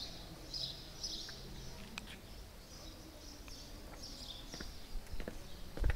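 Small birds chirping outdoors: short high calls repeated about twice a second, fading in and out over faint background noise, with a few sharp knocks near the end.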